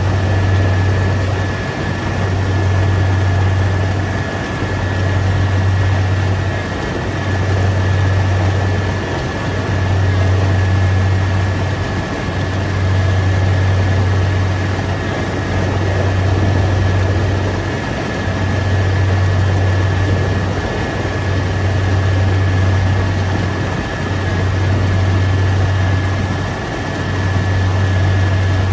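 Rice combine harvester running in the field: a loud low engine drone that swells and dips about every two and a half seconds, with a steady high whine above it.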